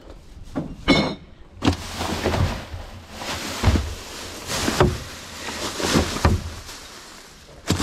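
Rubbish being rummaged through in a large bin with a reach grabber: plastic bags rustling and rubbish shifting in a string of irregular knocks and scrapes, with a sharper knock near the end.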